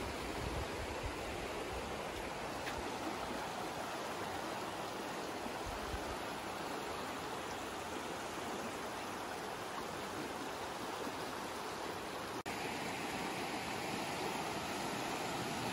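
Shallow creek rushing steadily over cobbles and gravel riffles, with a brief break in the sound about twelve seconds in.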